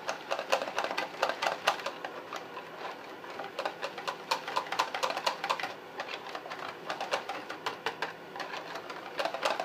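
Metal wire whisk clicking and scraping against the sides of a plastic container while whisking heavy cream into a thick chocolate ice cream base. Rapid, irregular clicks, thinning out in the second half and picking up again just before the end.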